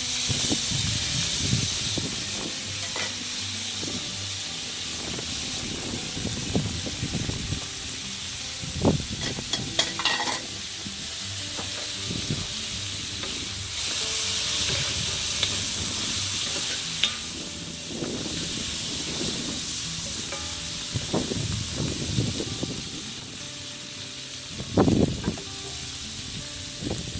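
Vegetables sizzling steadily in a hot cast iron skillet over a charcoal kamado fire, with ingredients tipped in from metal bowls. Occasional short knocks and clinks of bowl and utensils against the pan, the loudest near the end.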